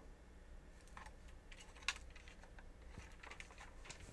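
Quiet room with a few faint, scattered light clicks and taps, and one sharper click about two seconds in.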